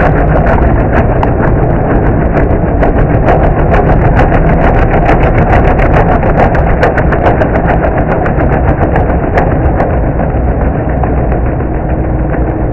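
Remote-control stump grinder's engine running loud and steady, with many sharp clicks over it that thin out near the end.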